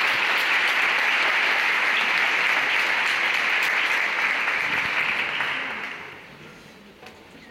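Concert-hall audience applauding, the clapping dying away about five to six seconds in.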